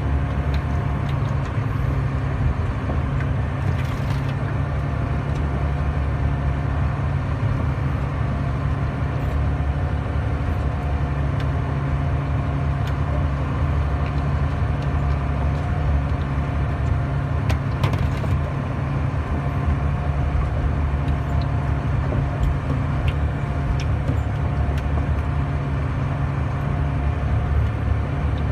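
Trailer truck's diesel engine running at a steady, even speed while driving on a rough dirt road, with a few short knocks and rattles along the way.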